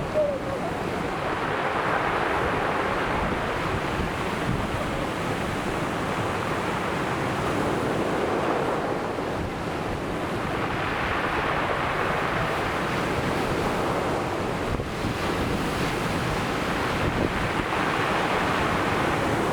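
Ocean waves breaking and washing up the shore in a continuous surf that swells and eases every several seconds, with wind rumbling on the microphone.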